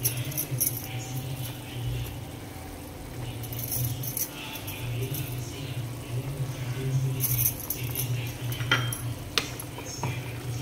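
Tamarind gravy boiling hard in a pan, with steady bubbling and irregular crackling pops. Two sharp clicks come near the end.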